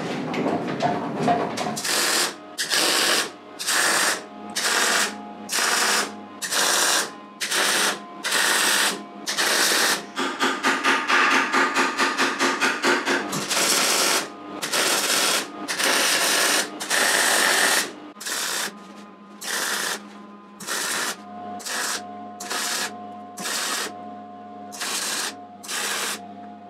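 MIG welding arc crackling in short bursts, stopping and starting roughly once a second as a motorcycle exhaust silencer is stitch-welded, with a quicker run of short pulses near the middle.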